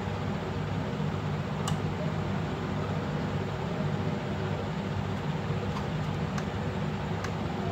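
Steady machinery hum with a low drone, with a few faint short clicks scattered through.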